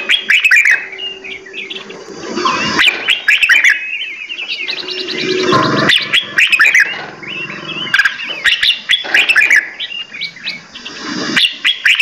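Several songbirds chirping and whistling in quick, overlapping calls, joined by a few sharp clicks.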